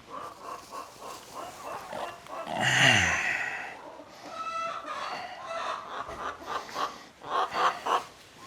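Barnyard livestock calling: goats bleating and hens clucking, with one loud call that falls in pitch about three seconds in and more calls near the end.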